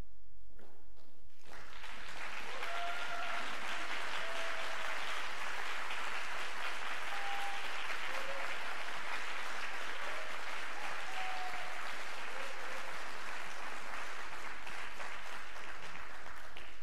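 Concert audience applauding, starting about a second and a half in and keeping up steadily.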